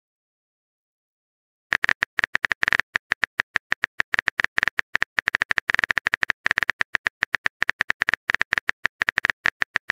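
Rapid, uneven clicks of a phone keyboard typing sound effect as a text message is typed out letter by letter, starting about two seconds in after a silence.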